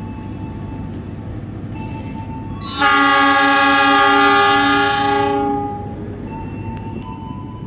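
Diesel locomotive horn sounding one long blast of about three seconds, a few seconds in, over the low rumble of the waiting train: the signal for the train's departure.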